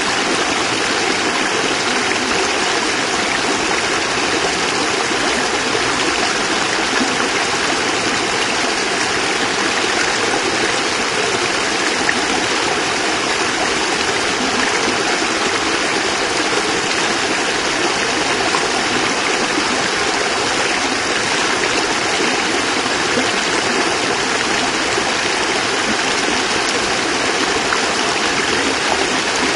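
Small cascade of water running steadily, an even rushing splash with no change in level.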